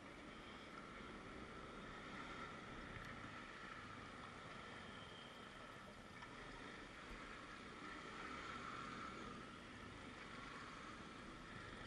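Faint, steady outdoor city background noise: an even hiss and rumble with no distinct event.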